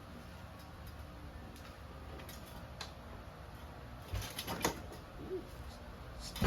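Faint clicks and taps of hand work on the motorcycle, with a cluster about two-thirds of the way through and one sharper click at the end, over a steady low hum.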